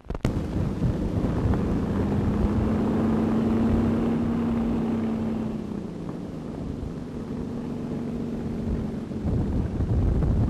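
Fairey Fox biplane's propeller engine running steadily as the plane taxis, its note easing off after about six seconds, over the hiss and rumble of an old optical soundtrack. A sharp click at the very start.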